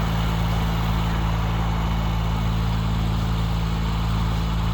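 A heavy engine running steadily at a constant speed, a deep even hum.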